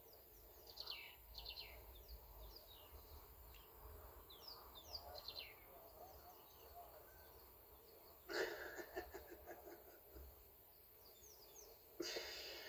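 Quiet outdoor background with faint bird calls: runs of quick falling chirps through the first few seconds and again near the end. A brief louder burst of noise about eight seconds in.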